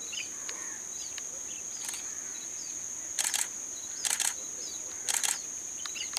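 Steady high-pitched insect drone with faint bird chirps, while a camera shutter fires three times in quick double clicks, about once a second, in the second half.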